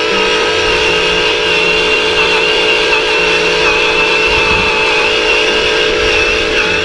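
Radio-controlled toy forklift's electric motor and gears whining steadily as it runs, with a wavering high whine over a fluttering lower hum.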